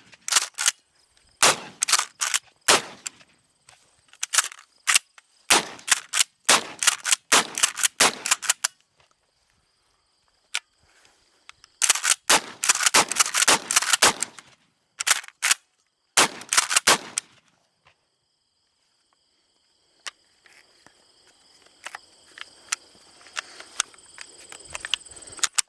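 Gunfire: many sharp gunshots, single shots spaced roughly half a second to a second apart, with a dense quick string of shots about halfway through. A few faint shots and clicks follow near the end.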